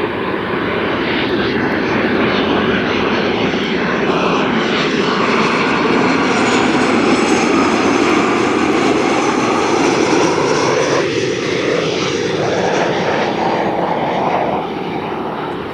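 Boeing 737-800 airliner's CFM56 jet engines on final approach, passing close: a steady, loud jet rush with a faint high whine through the middle. The noise eases off near the end as the aircraft moves away toward the runway.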